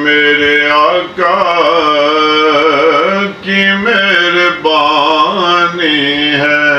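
A man's voice singing a naat, a devotional Urdu-Punjabi chant, in long held notes whose pitch wavers and ornaments, with brief breaks between phrases.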